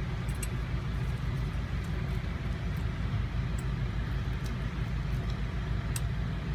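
Steady low motor hum inside a van, with a few faint, sharp clicks of a steel hand dental scaler against a dog's teeth.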